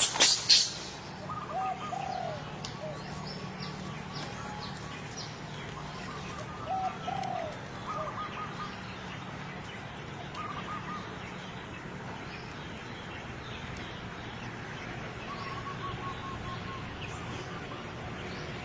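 Short chirping animal calls, coming in small groups several times, over a faint steady low hum, with a few sharp clicks in the first second.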